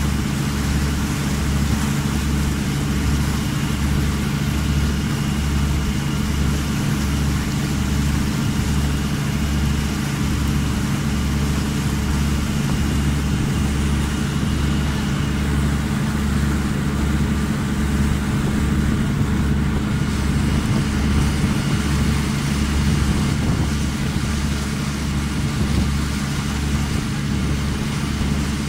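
Boat engine running steadily under way, with a low throb that pulses about once a second, over a hiss of wind and water.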